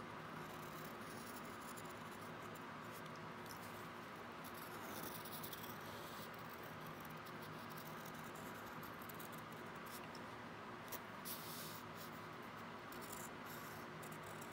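Faint scratching of a pen drawing lines on sketchbook paper, coming and going in short strokes, with a couple of light ticks about 11 seconds in, over a steady low hiss of room tone.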